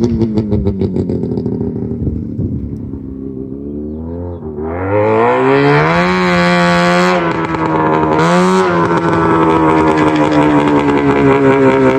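Yamaha 440cc two-stroke engine in a golf cart, running under way. Its note falls and quietens at first, revs up sharply about four and a half seconds in, eases briefly, revs again around eight seconds, then holds steady with a slowly sinking pitch.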